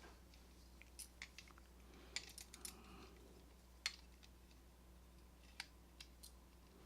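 Faint, scattered light metallic clicks of a lock being taken apart by hand, its parts shifting and catching; about ten clicks, the sharpest about four seconds in.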